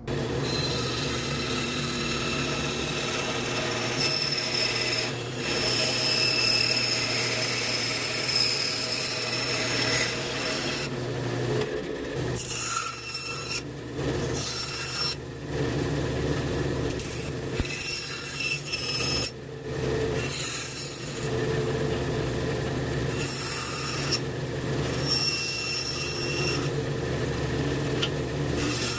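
Small bandsaw running with a steady motor hum while it cuts the outline of a walnut knife-handle blank with a white spacer glued on. From about a third of the way in, the sound keeps changing as the blade enters the wood, cuts, and is backed out again.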